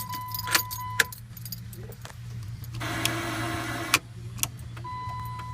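Dodge pickup's turn-signal circuit buzzing: a steady high-pitched buzz that stops about a second in and comes back near the end, with a few sharp clicks and a rush of noise in the middle over a low hum. The buzz comes from a faulty connection, here corrosion on the front left turn-signal bulb connector.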